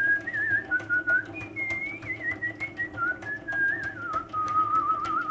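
A person whistling a wandering tune with held, wavering notes, over the steady hum and rapid regular clicking of a honey extractor spinning comb frames in its metal drum.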